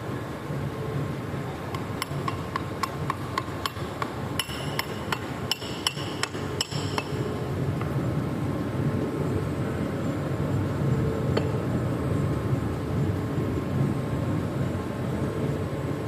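A rapid series of light hammer taps on metal parts of a magnetic powder brake, a few a second for about five seconds, some of them ringing, over a steady low rumble.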